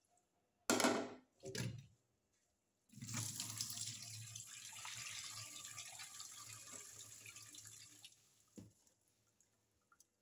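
Two short splashes of water poured over vegetables in a metal bowl, then water running and splashing into a stainless-steel sink for about five seconds, slowly fading as the bowl is drained. A short knock near the end.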